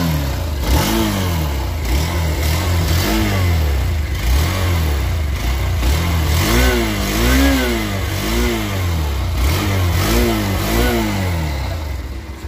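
Hero Xtreme 160R's fuel-injected single-cylinder engine running at standstill, its throttle blipped again and again, about once a second. Each rev rises and falls in pitch over a steady idle, heard from close to the exhaust.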